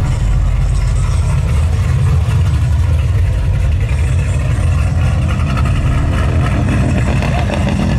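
Car engines idling, a steady low rumble, as cars roll slowly by.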